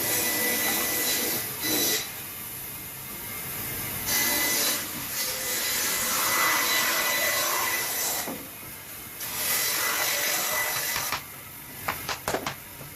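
Woodworking tool noise: a rough hissing, rasping sound in long stretches that stop and start, then several sharp clicks near the end.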